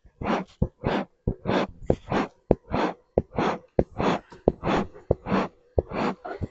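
Beekeeper's smoker being pumped: a rapid run of short hissing puffs of air, about two a second, each with a small click from the bellows, stopping abruptly near the end.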